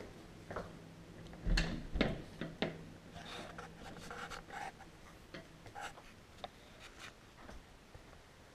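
Interior door being opened quietly by hand: a few sharp clicks and knocks from the handle and latch between about one and a half and two and a half seconds in, then soft rustling and small taps.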